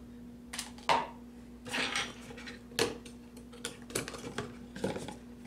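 Hands handling hard plastic and cardboard product packaging: about seven separate sharp clicks and knocks, with a short scraping rustle about two seconds in.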